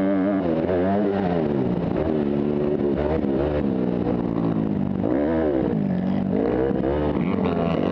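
Motocross dirt bike engine revving hard and backing off again and again as it is ridden around the track, its pitch rising and falling many times. Heard close up from on board the bike.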